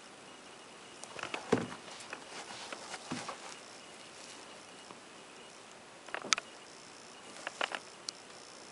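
Scattered rustles and light taps of a Nike Zoom Kobe 6 sneaker being handled and turned over in the hands, over a faint steady hiss. The handling comes in clusters: about a second in, around six seconds in, and near the end.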